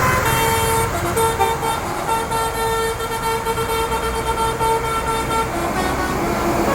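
Tour bus telolet horn sounding one note in short repeated blasts and longer holds for about five seconds, then stopping, over the low rumble of bus engines.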